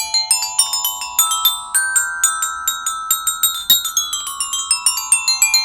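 Xylophone played with mallets: a quick run of struck notes, about five or six a second, each ringing on and overlapping the next, with the notes stepping down in pitch partway through.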